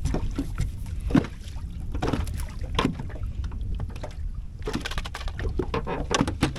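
Wind rumbling on the microphone, with scattered knocks and clatter from a landing net being handled in a small fishing boat.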